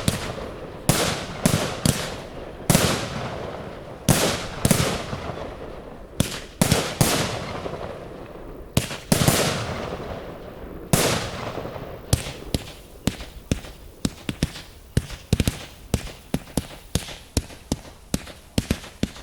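Firework display: loud bangs every second or two, each followed by a long fading echo. About twelve seconds in, they give way to a rapid string of shorter, sharper cracks, several a second.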